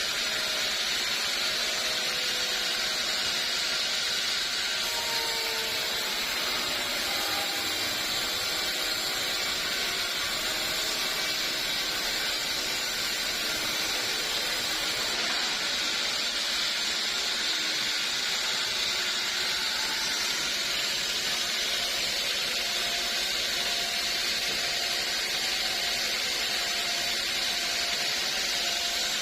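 Sawmill saw running steadily, a continuous high hissing noise that holds the same level throughout.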